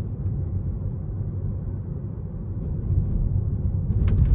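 Low, steady road and tyre rumble inside the cabin of a moving electric Tesla Model 3, with no engine note, and a short click about four seconds in.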